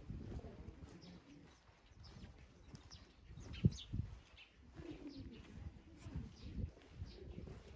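Birds chirping with many short, falling high calls, a low cooing call about five seconds in, and a few dull footsteps.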